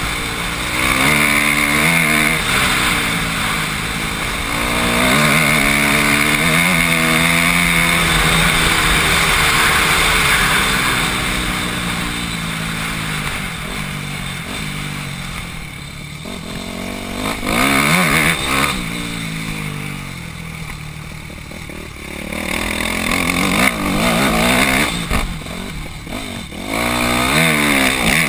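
Dirt bike engine heard from the rider's helmet, revving up and down through the gears, with a steady rush of wind on the microphone. The revs fall away twice past the middle and climb hard again near the end as the bike takes a hill climb.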